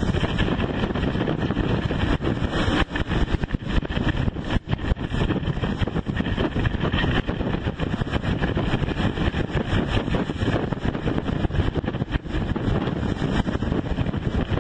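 Storm wind buffeting the microphone in uneven gusts, with heavy seas breaking and rushing past a sailing yacht.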